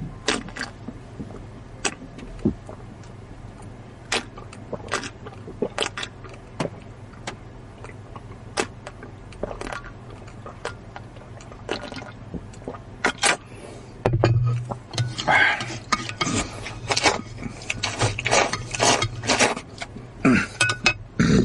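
Close-miked eating sounds: scattered sharp wet mouth clicks from chewing, becoming denser and louder about two-thirds of the way through as the chewing and slurping pick up.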